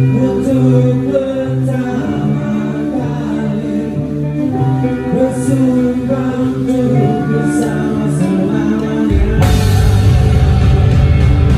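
Rock band playing live on stage: a sung melody over sustained guitar chords, then the drums and the full band come in loudly about nine seconds in.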